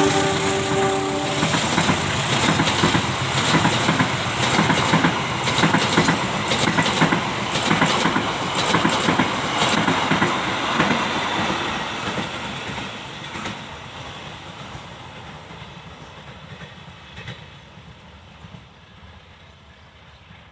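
A passing train, its wheels clattering rapidly over the rail joints, growing fainter over the last several seconds as it moves away. A horn-like held tone ends about a second and a half in.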